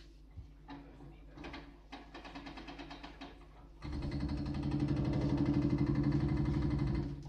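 Hydraulic breaker on a JCB backhoe loader's arm hammering at the top of a brick wall: a few scattered knocks, then about four seconds in a loud, rapid pounding that stops just before the end.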